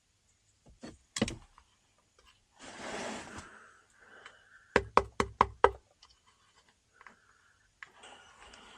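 Sharp knocks from hands-on work on the engine's oil strainer area: a pair of knocks, a short scraping rustle, then a quick run of about six knocks in under a second.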